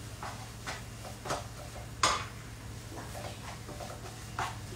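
Wooden spatula stirring and scraping a thick cashew-paste masala in a non-stick kadhai: a few short scrapes and knocks against the pan, the loudest about two seconds in, over a steady low hum.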